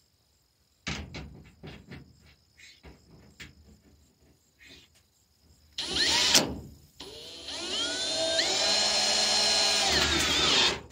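Cordless drill driving a metal screw into corrugated sheet-metal siding. After a few light knocks, the drill gives a short burst about six seconds in. It then runs for about four seconds, its whine rising in pitch before holding steady, and stops near the end.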